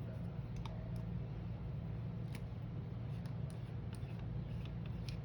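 Light, scattered clicks and taps of small objects being handled, about a dozen, over a steady low hum.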